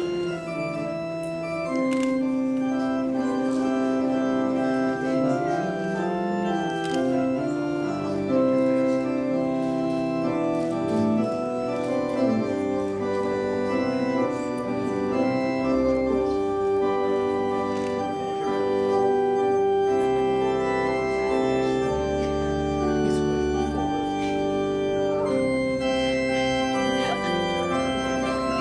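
Organ playing the wedding recessional: long held chords, with deep bass notes coming in about halfway through.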